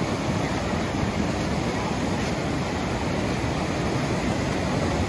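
Fast river rapids rushing steadily over rocks: a constant, even wash of white water.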